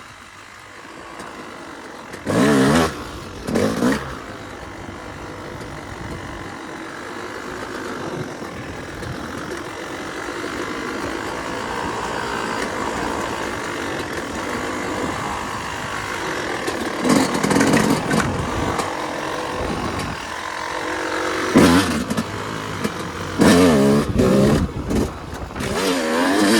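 Yamaha YZ250 two-stroke dirt bike engine being ridden, revving hard in short bursts a few seconds in, again past halfway and several times near the end, with steadier running between.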